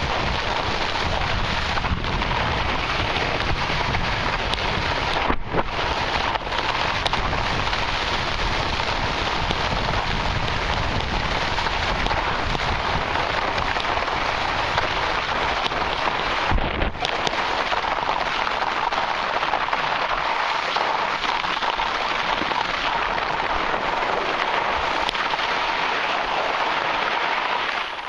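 Steady hiss of a downhill run on firm summer snow, the scrape of edges sliding over the surface, with wind rumbling on the microphone that eases about two-thirds of the way through.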